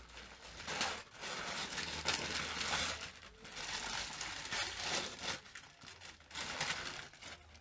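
Gift wrapping being torn and crumpled as a present is unwrapped, in several bouts of ripping and crinkling paper.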